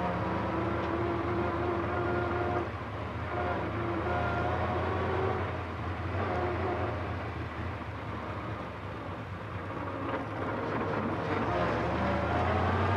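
Engine of a vintage open-wheel racing car running steadily as the car drives along, rising in pitch and getting louder near the end as it speeds up.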